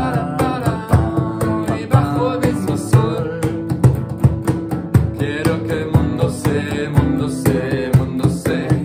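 Acoustic guitar strummed in a steady rhythm, with two men singing over it.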